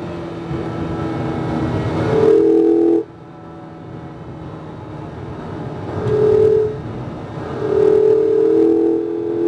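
Mazda MX-5 RF's 2.0-litre four-cylinder engine driven hard on track. It builds in loudness for about three seconds, drops away suddenly, then builds again, with steady notes over the loudest stretches.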